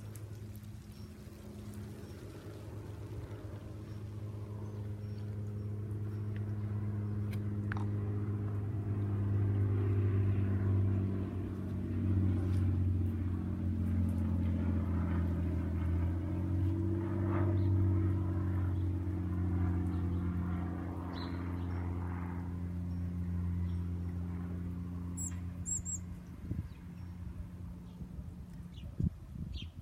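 A vehicle engine running with a steady low hum, growing louder over the first ten seconds or so and fading away after about twenty-five seconds. A brief high bird chirp comes near the end.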